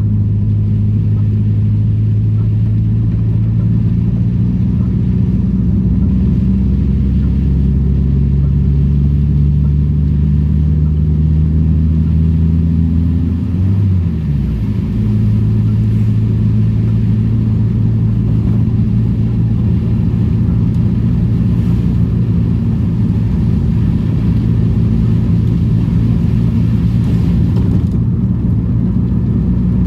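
Classic Daihatsu Charade car engine running steadily while driving, its pitch creeping up and then dropping briefly about halfway through at a gear shift before it settles into a steady run again.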